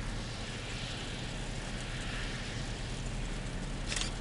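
A car's steady low engine hum under a constant hiss, heard from inside the car, with one brief click near the end.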